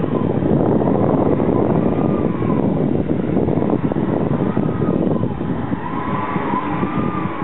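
Electric actuators of an E-Motion 1500 hexapod motion platform running. Under a loud, steady mechanical rumble, a motor whine rises and falls in pitch again and again as the platform tilts back and forth.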